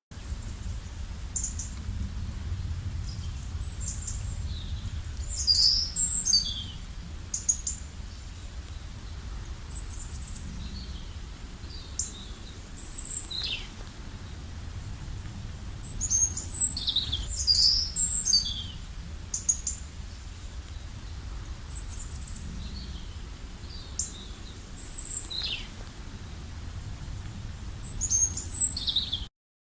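Wild birds chirping: short, high calls, many of them quick falling notes, coming in clusters, over a steady low rumble. The sound cuts off suddenly near the end.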